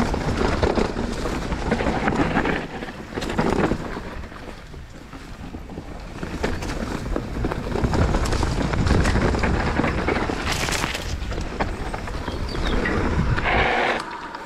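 Mountain bike riding a dirt woodland trail: wind buffeting the microphone over the tyres rumbling on the ground, with scattered clicks and knocks from the bike rattling over bumps. It gets quieter near the end as the bike slows.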